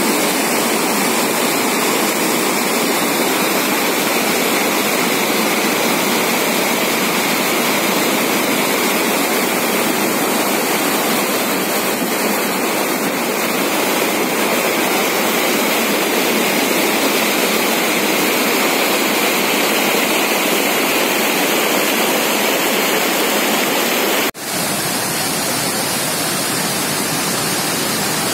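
Floodwater from a rain-filled lake spilling over its surplus weir, a steady loud rush of falling water. The sound breaks off for an instant near the end and comes back a little quieter.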